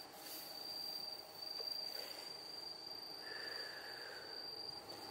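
Faint, steady high-pitched chirring of crickets at night.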